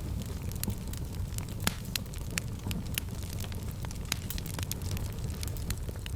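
Fireplace fire crackling, with irregular snaps and pops over a steady low rumble of flames, and one sharper pop a little under two seconds in.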